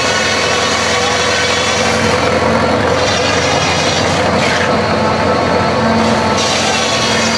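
Antique shingle mill's circular saw slicing shingles off a wooden block, a cut about every second or two, over a steady running engine.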